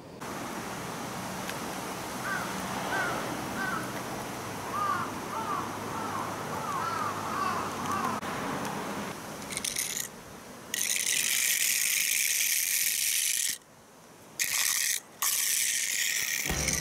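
Small die-cast toy car rolled over rough pebbled concrete, a loud gritty rattle in several stretches that start and stop abruptly in the second half. Before that there is quieter outdoor noise with a run of short repeated chirps.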